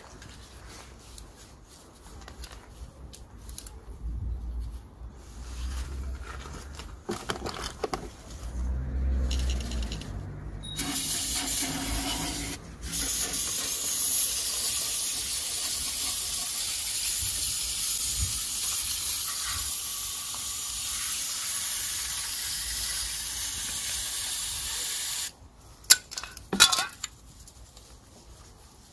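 Aerosol can of EGR valve cleaner spraying into a soot-clogged EGR cooler in one long steady hiss of about fourteen seconds, with a brief break early in it. Before the spray there are scattered handling knocks, and a few sharp clicks follow it.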